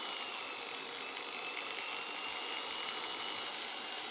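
Doliz BA670 550 W corded impact drill running at full speed with no load: a steady, smooth high-pitched motor whine.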